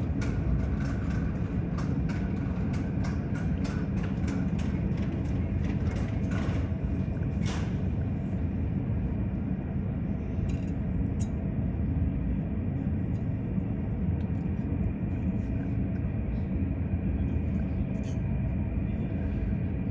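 Steady low rumble of a Boeing 777's jet engines running as the airliner is pushed back from the gate. Scattered faint clicks come through in the first half.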